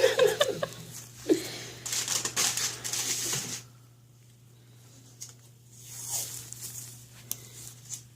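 Close rustling and crinkling handling noise in bursts during the first three and a half seconds, then much quieter with a few soft rustles, over a steady low hum.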